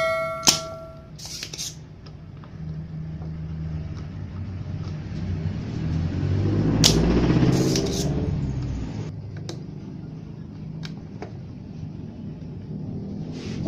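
A ringing chime fades out at the very start, followed by a sharp click. A low rumble then swells and fades, and about seven seconds in a spring-loaded desoldering pump snaps once as it sucks solder from a circuit-board joint.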